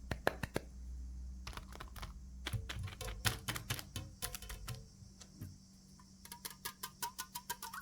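Irregular sharp clicks and light clatter of small hard items being handled, coming in quick runs. From about six seconds in, a faint ringing tone sits under the clicks.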